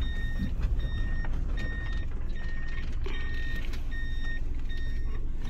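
A car's in-cabin reverse-gear warning beeping at an even pace, a little more than once a second, as the car backs up slowly. A low engine and road rumble runs underneath.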